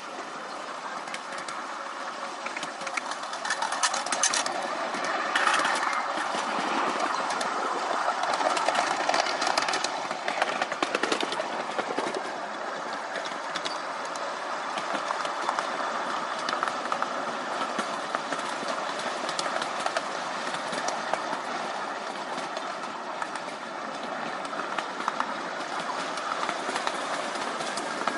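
Miniature railway train running along the track: a steady rumble of small steel wheels on the rails with frequent clicks over the rail joints, heard from the riding car.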